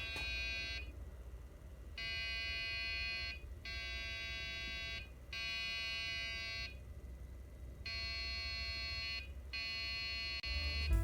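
A PC motherboard's POST beeper sounding a repeating pattern of long beeps, about six of them at roughly 1.3 s each with short pauses, over a low steady hum. This pattern is typical of a memory error on boot, and the builder suspects the RAM is causing the problem.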